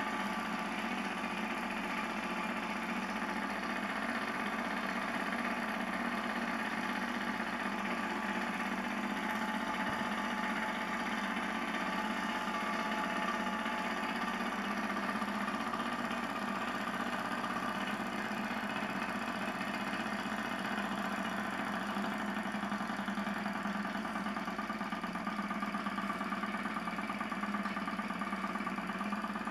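Small Ringbom Stirling engine running steadily on its spirit-lamp flame, a fast, even mechanical whir from its pistons and propeller.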